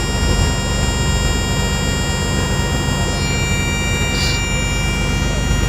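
A 6x6 armoured truck's engine running steadily, a low drone with a constant hum. A brief hiss about four seconds in.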